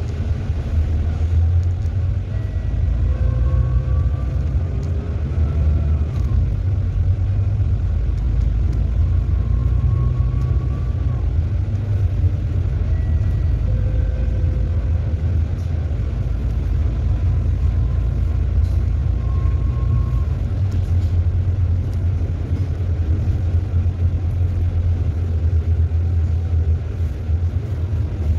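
Steady low rumble of a bus's engine and road noise heard from inside, from the upper deck of a double-decker, with a faint whine that rises in pitch a few times.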